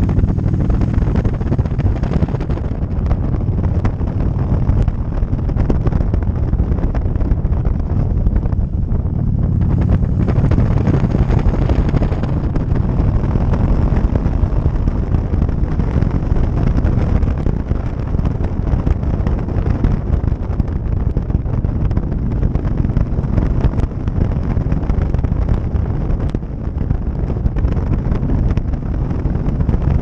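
Wind buffeting the microphone of a motorcycle-mounted camera while the motorcycle rides along, with its engine and road noise underneath. The sound is a loud, steady rush.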